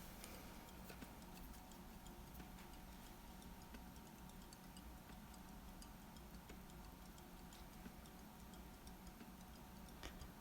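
Near silence: faint room tone with small, scattered ticks.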